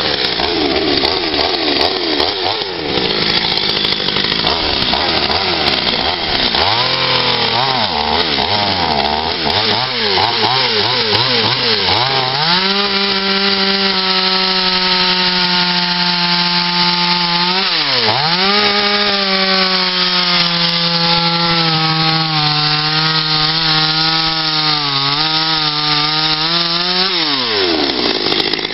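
Petrol two-stroke chainsaw carving into a wooden log. For the first twelve seconds or so the revs rise and fall quickly in short throttle blips; then the saw is held at high revs through a long cut, its pitch sagging slowly under load. The throttle is let off briefly about eighteen seconds in and again near the end.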